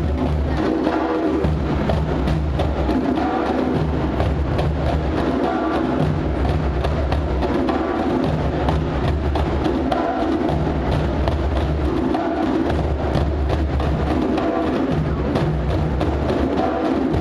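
Music with a fast, steady percussion beat of clicking strokes over a held bass line that shifts every couple of seconds.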